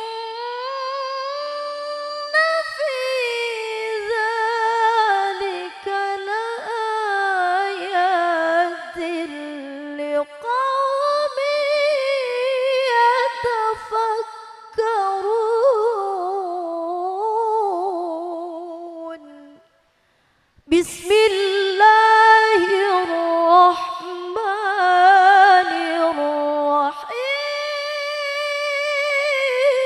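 A woman reciting the Quran in the melodic tilawah style, unaccompanied, drawing out long ornamented phrases with wavering pitch into a microphone. She breaks off for about a second two-thirds of the way through, then takes up a new phrase.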